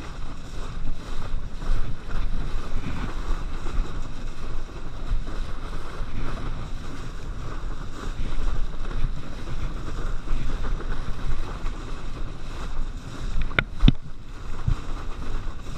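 Water rushing and splashing under a kneeboard towed at speed through a boat's wake, with wind buffeting the microphone. A few sharp knocks come near the end.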